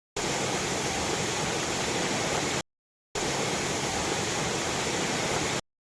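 Steady, dense rush of a large waterfall pouring and splashing. It is broken by gaps of dead silence: briefly at the start, for about half a second in the middle, and again near the end.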